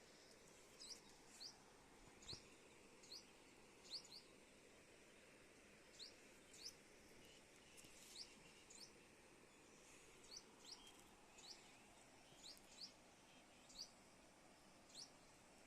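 Faint, short high-pitched bird chirps repeating about once a second, often in pairs, over a quiet rural background.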